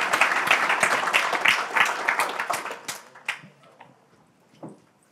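Audience applauding at the end of a talk. The clapping fades out about three seconds in, leaving a stray clap and a soft knock near the end.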